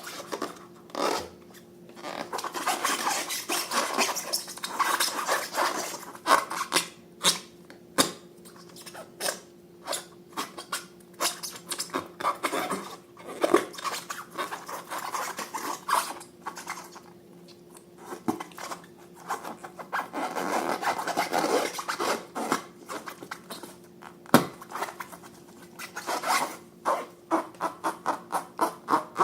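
Hands working slime and balloons: rubbing and scraping with many sharp clicks and crackles, in irregular stretches with short pauses. A faint steady hum sits underneath.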